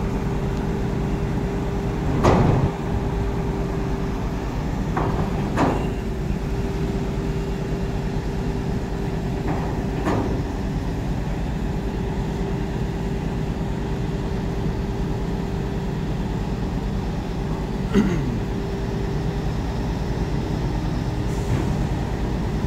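Heavy diesel engine running steadily at a constant low hum, with a few short sharp knocks about two, five, ten and eighteen seconds in.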